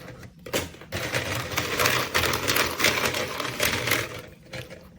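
Rapid clattering and rattling of many small hard plastic pieces being stirred or rummaged by hand. It is densest in the middle and thins out near the end.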